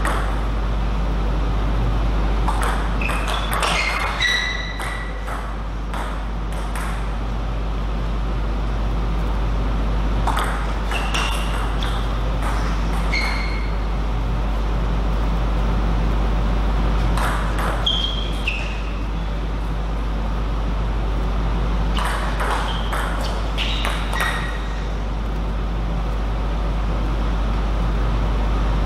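Table tennis ball clicking off rackets and the table in several short rallies of quick pings, separated by pauses, over a steady low hum.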